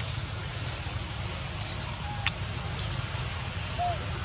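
Steady low outdoor rumble with an even hiss. There is one sharp click about two seconds in, and a couple of faint short chirps, one just before the click and one near the end.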